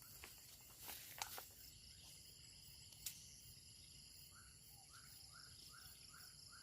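Quiet countryside ambience of insects trilling steadily, with a couple of sharp clicks in the first half. In the second half comes a short run of about six evenly spaced chirps, roughly two a second.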